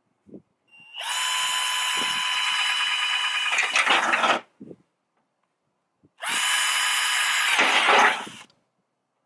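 Cordless drill boring two holes through a car's sheet-metal fender: two runs of about three seconds each, a steady motor whine that turns rougher as the bit cuts through the metal, then stops.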